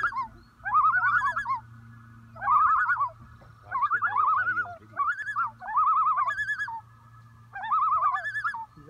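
Common loons giving tremolo alarm calls: rapid, wavering, laugh-like calls in repeated bouts of about a second each. A pair warning off a bald eagle to protect their chicks.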